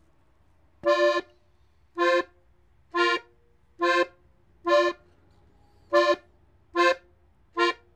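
Gabbanelli button accordion in F playing eight short, detached notes slowly, about one a second, with short gaps between them.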